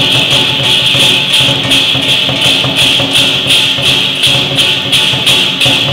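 Music with a steady percussion beat of about three strikes a second over a continuous high ringing.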